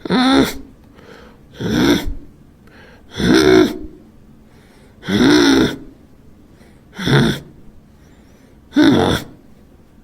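A person's short, wordless surprised vocal reactions, like gasps or 'oh!'s, six in a row, each about half a second long and roughly two seconds apart, the pitch rising and falling within each.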